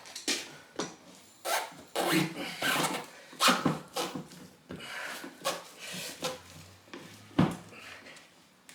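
Irregular knocks, clunks and scraping from handwork on a wheel and tyre, one or two strikes a second, with two sharper knocks about three and a half seconds in and near the end.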